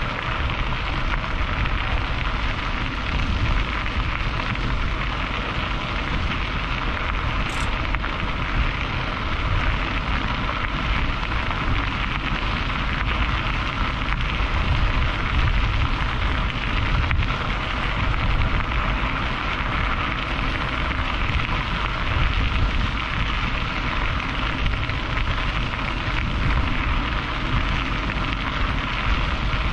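Steady rushing, crackling noise of wind buffeting the microphone while moving along, with a deep rumble underneath and no pauses.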